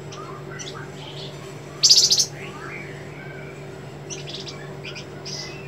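White-rumped shama (murai batu) singing: short high chirps and whistles, with one loud, harsh buzzing burst about two seconds in, the sharp 'besetan' note. Underneath is a steady low hum.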